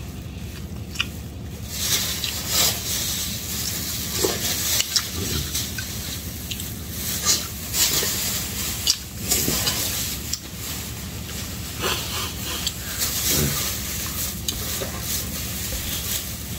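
Slurping spoonfuls of soup and chewing, in irregular noisy sips, with a metal spoon now and then clinking against a ceramic bowl.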